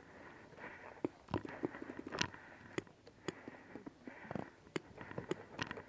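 Paintball markers firing: scattered, irregular sharp pops, some faint, about a dozen in all, with soft hissing breaths in between.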